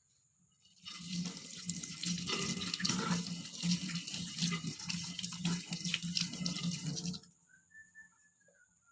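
Tap water running into a sink while hands are rinsed under it. The water starts about a second in and stops suddenly about a second and a half before the end.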